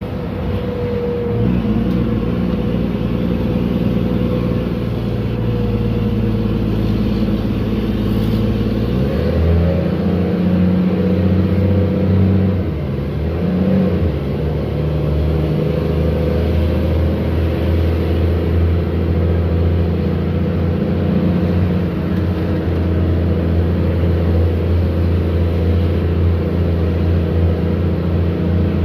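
Mercedes-Benz O500U city bus engine running very loud through a holed, leaking exhaust, a deep steady drone. The engine note changes about nine seconds in, wavers briefly around thirteen seconds, then holds steady.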